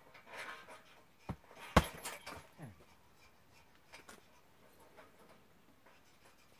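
Heavy punching bag struck twice in quick succession, the second hit loud, with hard breathing around the blows. After that only a few faint knocks.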